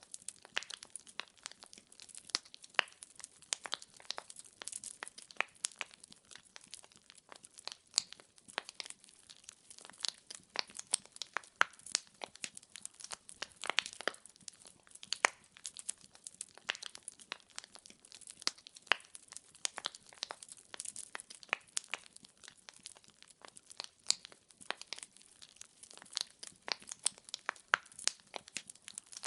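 Wood fire burning in a fireplace: irregular sharp crackles and pops of burning logs, many a second, over a faint steady hiss.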